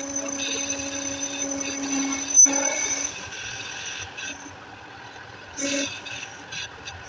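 Metal lathe running, turning a starter motor armature's new copper commutator against a cutting tool: a steady hum with a thin high whine. A single sharp knock about two and a half seconds in, after which the running goes quieter, with a short louder burst near the end.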